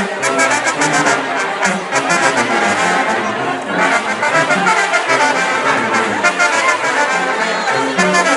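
Brass-band dance music: trumpets and trombones playing over a steady, repeating bass line with quick percussion in the highs.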